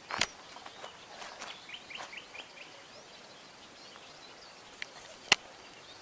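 A small bird gives a quick run of about five short chirps about two seconds in, over faint outdoor background. A few sharp clicks or snaps stand out, the loudest about five seconds in.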